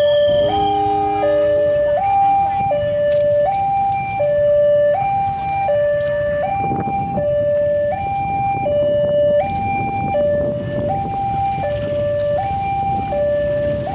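Electronic two-tone warning alarm of a railway level crossing, alternating between a lower and a higher pitch about every three-quarters of a second, under the low rumble of a passing train.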